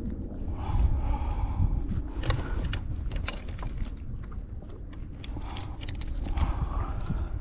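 Metal fishing pliers clicking and a lure's treble hooks rattling as the hooks are worked free from a bass's mouth, with a run of sharp clicks in the middle and again near the end. Low wind rumble on the microphone underneath.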